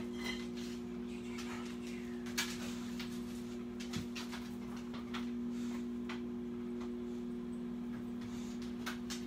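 Someone rummaging in an open refrigerator: scattered light clicks and knocks of containers and packages being moved, over a steady low hum.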